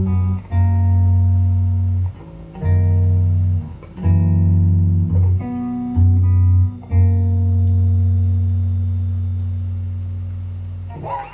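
Guitar playing the closing chords of a song: several held chords with short breaks between them, the last one left ringing and fading over about four seconds until it stops near the end.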